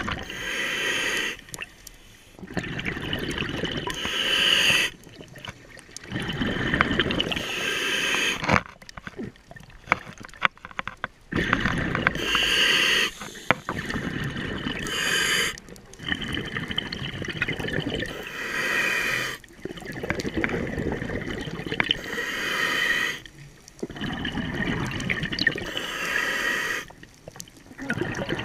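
Scuba diver's regulator breathing recorded underwater: a hissing inhale and a rush of bubbling exhaust, breath after breath with short pauses between.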